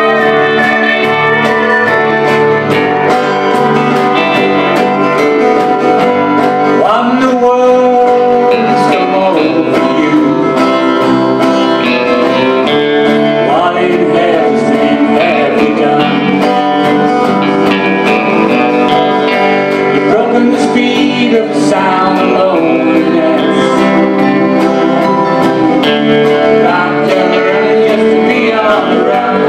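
Live country band music: a pedal steel guitar and bass guitar playing over a steady beat, with a man singing in parts.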